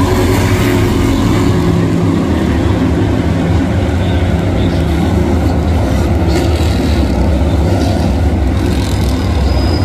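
NASCAR Cup Series stock cars' V8 engines running together as a line of cars passes at a steady, low pace, a loud continuous drone with no revving.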